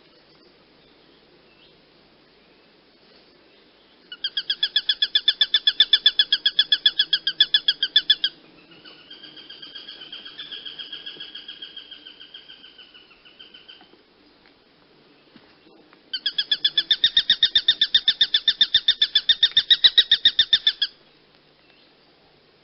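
A hawk calling: two long series of fast, evenly spaced chattering notes, each lasting about four to five seconds, with a softer, wavering drawn-out call between them.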